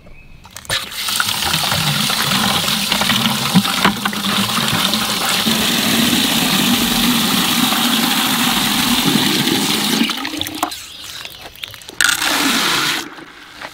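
Water from an outdoor faucet pouring into a plastic five-gallon bucket, a steady rush that runs for about ten seconds and then stops. A short louder noise follows near the end.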